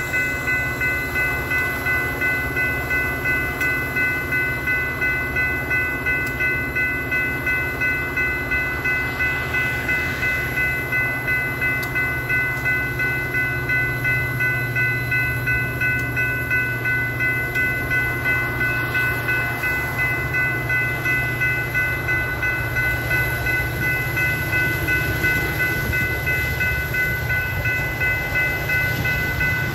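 Railroad grade-crossing warning bells ringing steadily, about twice a second, over the low, steady rumble of a train.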